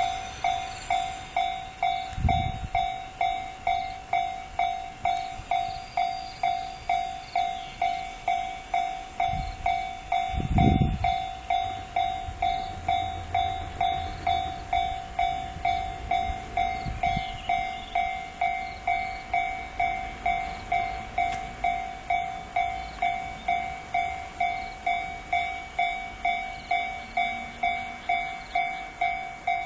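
Japanese railway level-crossing warning bell ringing steadily at just under two dings a second, signalling that a train is approaching. Two low thumps come through the ringing, the louder one about eleven seconds in.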